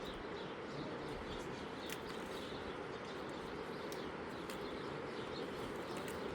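Steady outdoor background noise with faint bird chirps.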